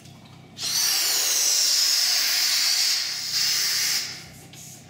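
Helium hissing from a gas cylinder's valve into a balloon as it is filled: a long burst starting about half a second in, a short dip, then a second burst that stops about four seconds in.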